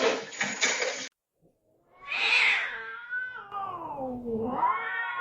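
Noise cut off sharply about a second in, then a domestic cat's long, drawn-out yowl that falls in pitch and then rises again.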